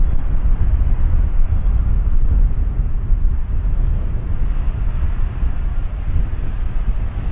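Jet airliner engine rumble, steady, mixed with low wind buffeting on the microphone.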